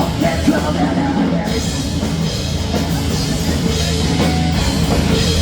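A punk rock band playing live at full volume through a PA: drums, distorted electric guitar and bass guitar, in the closing bars of a song.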